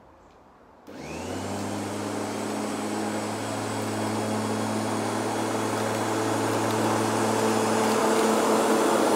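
Bosch Rotak 34-13 corded electric lawnmower switched on about a second in: the motor and blade spin up with a brief rising whine, then run with a steady hum that grows louder as the mower is pushed closer. Set on its highest cutting height, it is picking up almost no grass.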